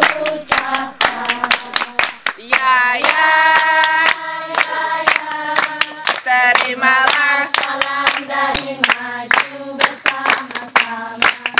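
A group of children singing a song together while clapping their hands in time, in a steady rhythm.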